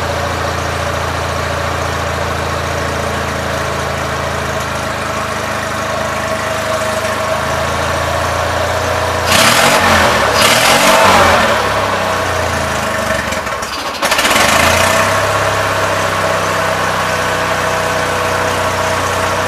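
Gravely 817 garden tractor engine running through its newly installed muffler, idling steadily. About halfway through it speeds up and runs louder for several seconds, then drops back to a steady idle.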